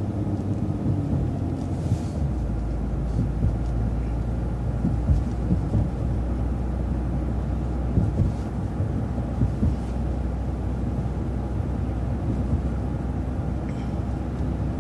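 City transit bus driving, heard from inside: steady low engine and road rumble with scattered short knocks and rattles.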